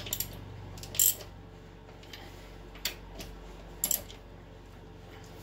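Hand socket ratchet clicking in several short bursts as wheel lug nuts are snugged down, the loudest burst about a second in, over a steady low hum.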